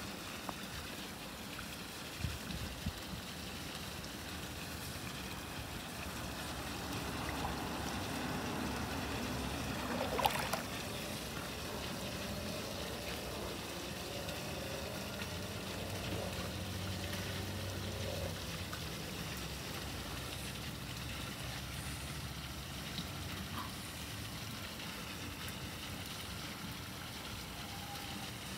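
Steady trickling and lapping of swimming-pool water, with one brief louder noise about ten seconds in.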